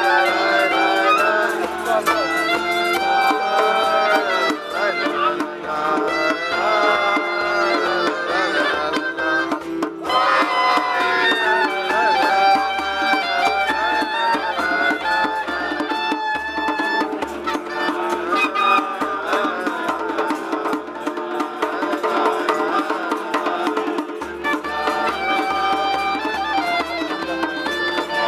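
A clarinet playing a melody while a group of men sing along, over a steady beat.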